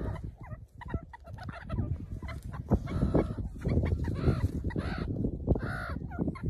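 Meerkats calling close to the microphone: a run of short chirping, squeaking calls, busiest about halfway through, over a low rumbling noise.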